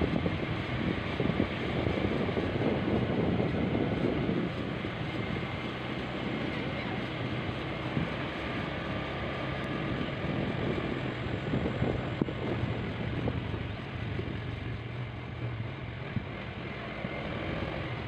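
Small motorcycle engine running steadily while riding along a dirt lane, with wind buffeting the microphone.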